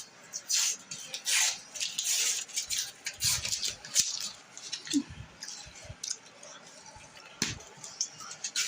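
Irregular rustling and clattering from kitchen handling of food packaging, with a sharp click about four seconds in.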